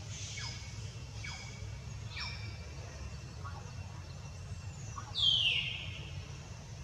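Animal calls: three short, thin, high calls sweeping quickly down in pitch, then about five seconds in a louder call that slides downward over half a second. A steady low rumble sits underneath throughout.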